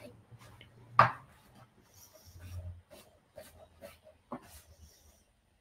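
Knife chopping zucchini on a cutting board: one loud knock about a second in, then a run of lighter, irregular taps of the blade on the board.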